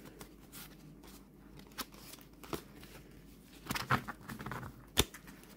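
Halloween Tarot cards being handled and shuffled: soft scattered rustles and card slides, a brief flurry about four seconds in, and one sharp card click near the end.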